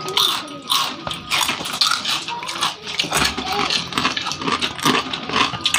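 Quick crunching and clicking of people eating crunchy dry-fried spicy macaroni snack with plastic spoons from a bowl, over low murmured voices.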